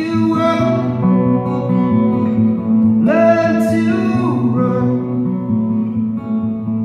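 A man singing a slow song to his own acoustic guitar, live through a microphone and PA. One sung phrase starts just after the beginning and another about three seconds in, over the steady guitar.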